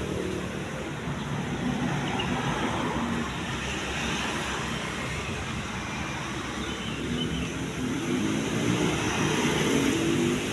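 Isuzu Panther's diesel engine idling with an even low clatter. Over the last couple of seconds a louder, wavering drone joins it.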